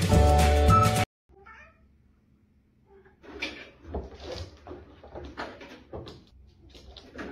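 Background music cuts off about a second in. After a short quiet, cats meow in a string of short, irregular calls, over low thumps from their paws on a cat exercise wheel.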